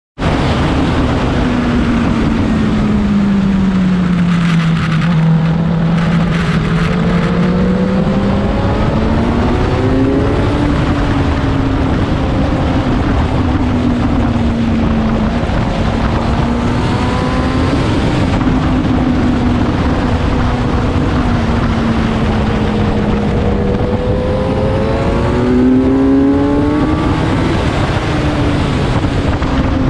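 Motorcycle engine heard from an onboard mount at track speed, its pitch falling and rising again and again with the throttle, over wind rushing on the microphone.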